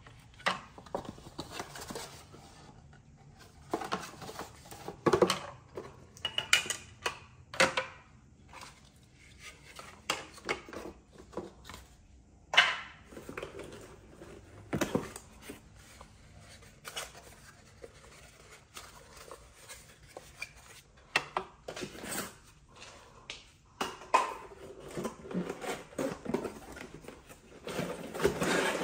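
Cardboard packaging inserts and plastic parts of a Dyson V10 cordless vacuum being handled during unboxing: irregular knocks, clicks and rustles as pieces are lifted out and set down on a hard tabletop.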